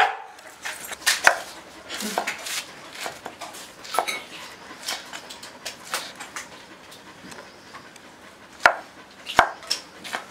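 Knife chopping green chillies on a wooden cutting board: scattered, irregular sharp knocks, two louder ones near the end.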